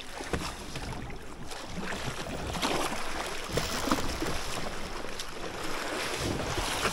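A hooked steelhead thrashing and splashing at the surface beside a drift boat as it is played to the net. The splashing grows louder about halfway through.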